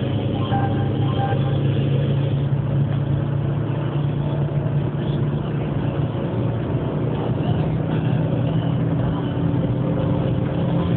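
Renault Megane 1.5 dCi four-cylinder turbodiesel heard from inside the cabin at high speed, close to its top speed of about 200 km/h: a steady engine drone under wind and tyre noise.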